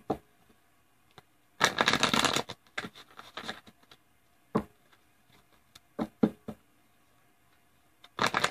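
A tarot deck being shuffled by hand: a quick flurry of card-on-card flutter about one and a half seconds in, a few single taps and clicks of the cards in the middle, and another shuffling flurry near the end.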